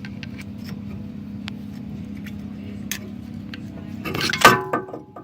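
Small metallic clicks and clinks of hands and tools working at a car's front brake assembly, with one louder ringing metal clink about four seconds in, over a steady low hum.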